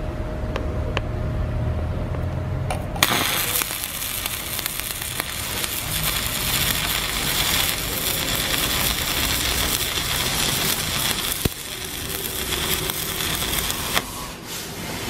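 Stick (shielded metal arc) welding: after a low hum, the electrode arc strikes about three seconds in with a sudden crackling hiss. The crackling holds steady as the bead is laid, then cuts off about a second before the end as the arc is broken.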